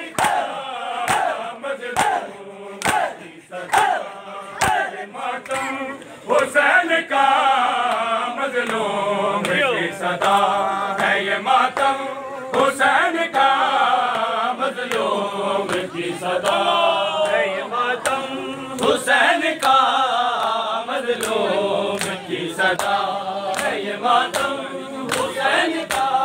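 A group of men chanting a nauha (Muharram lament) in unison, kept in time by the sharp slaps of matam: hands striking bare chests a little faster than once a second. The chanting comes in short phrases at first and becomes continuous about six seconds in.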